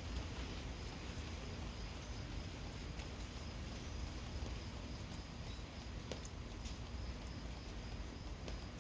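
Gentle rain falling steadily, with scattered sharp drips and a faint steady high tone in the background.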